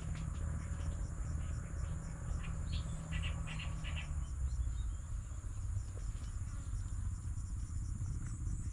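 Insects trilling steadily in a high, pulsing chorus over a low rumble, with a quick run of short chirps about three seconds in.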